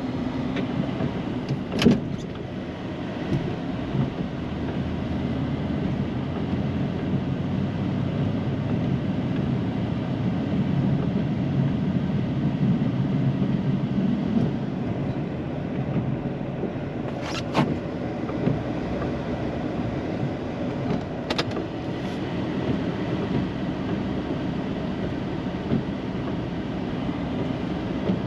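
Plow truck's engine running steadily while plowing snow, a continuous low rumble, with a few sharp knocks: one about two seconds in and two more in the second half.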